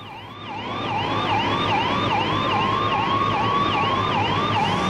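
Emergency vehicle siren on a fast yelp, each sweep rising and dropping back sharply about three times a second, growing louder over the first second, over a low vehicle rumble.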